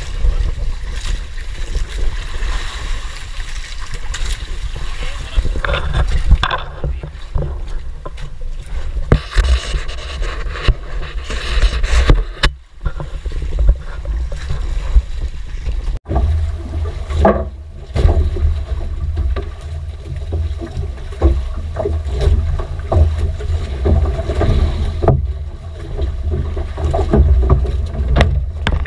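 Wind buffeting the microphone and sea noise aboard a small outrigger fishing boat: a heavy, gusty rumble with scattered knocks.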